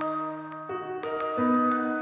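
Gentle background music of sustained notes, with new notes coming in every half second or so.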